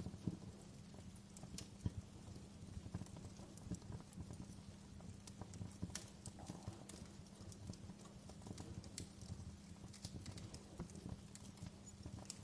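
Wood fire crackling in a fireplace: irregular sharp pops and snaps over a low, steady rumble, with the strongest pops just after the start and about two seconds in.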